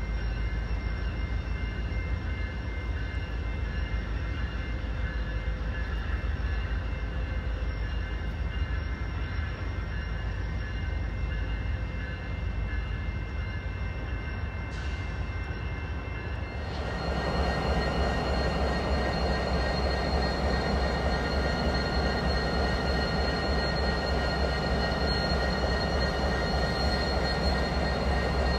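BNSF diesel locomotive engines running steadily, with a low hum and several steady whining tones above it. About two-thirds of the way through, the sound changes suddenly to a nearer, fuller locomotive engine sound.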